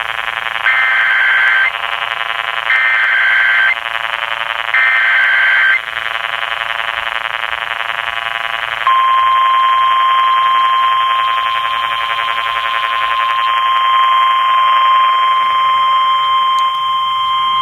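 Emergency Alert System tones: three roughly one-second bursts of SAME header data with about a second between them, then a long single steady 1050 Hz warning alarm tone lasting about nine seconds. The tones sound over a steady buzz, and together they open a new emergency alert.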